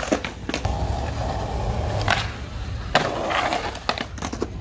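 Skateboard wheels rolling on concrete with a steady hum, broken by several sharp clacks of the board hitting the ground, a cluster of them about three seconds in and again near the end.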